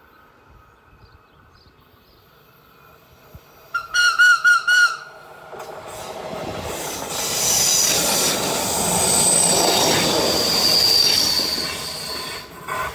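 TRAVYS NPZ electric regional train sounds its horn in a quick series of short toots about four seconds in, then runs past close by, its wheels squealing high on the curve as it passes, before the noise fades.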